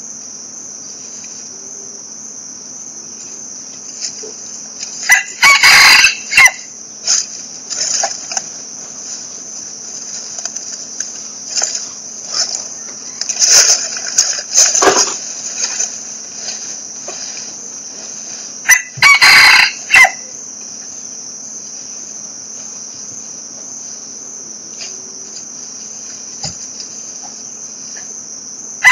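A rooster crowing three times, each crow about a second long, over the steady high buzz of insects.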